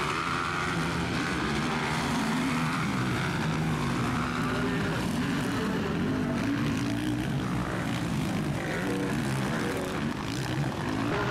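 Motocross motorcycle engines revving hard, their pitch climbing and dropping over and over with throttle and gear changes.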